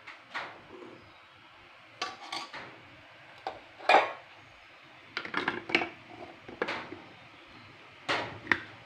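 Steel utensils clinking and knocking as cooked chickpeas are scooped from a steel bowl into a mixer-grinder jar: a string of separate clinks, the loudest about four seconds in.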